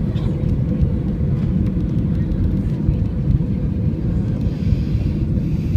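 Steady low rumble of engine and airflow noise heard inside the cabin of an AirAsia Airbus A320 on approach to land.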